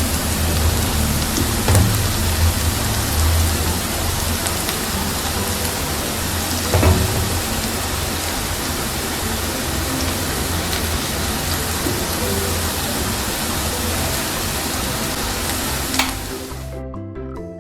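Masoor dal mixture sizzling steadily in a hot kadhai over the flame, a constant hiss with a low rumble, broken by a couple of sharp clicks.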